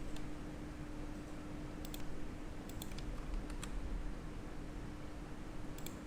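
A handful of short, sharp computer clicks, a few of them in quick pairs, over a steady low electrical hum.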